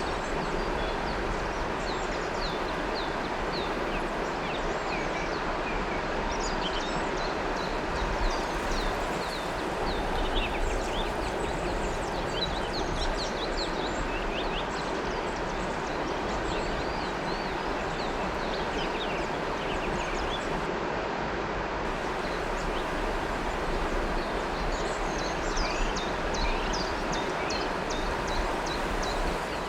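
River water flowing steadily, with many small birds chirping in quick, short, high notes throughout.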